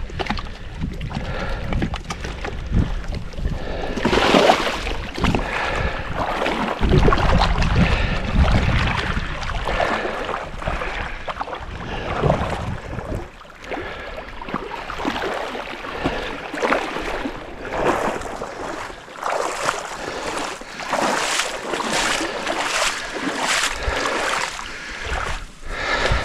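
Wind buffeting the microphone over water sloshing and splashing, with a run of short knocks and splashes in the second half as the dock is worked on in the lake.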